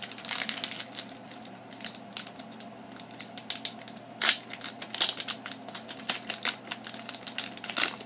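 Foil Pokémon booster pack wrapper being crinkled and torn open by hand: a dense run of sharp crackles and rips, loudest around the middle.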